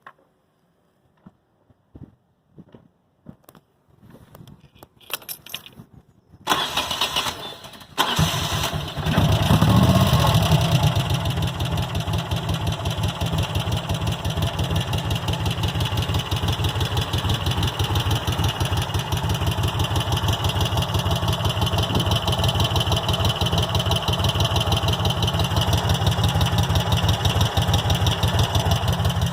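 A few faint clicks, then a Moto Guzzi California III's air-cooled V-twin is cranked on the starter and catches about eight seconds in, revs briefly, and settles into a steady, even idle.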